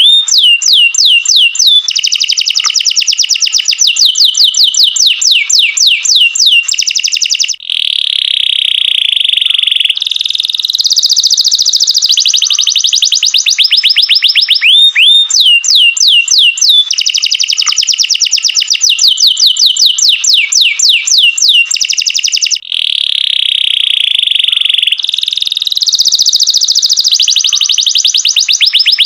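Domestic canary singing continuously and loudly: fast runs of short, high falling notes alternate with long, steady rolled trills, with a brief break about a quarter of the way in and again about three quarters in. The same sequence of phrases repeats about every fifteen seconds, as a canary tutor (cenkok) song recording.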